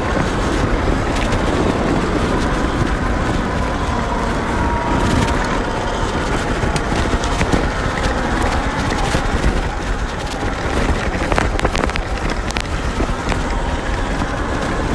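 Sur-Ron electric dirt bike riding on loose dirt: a steady rush of wind and tyre noise with a faint motor whine, and a few short clicks of stones or ruts late on.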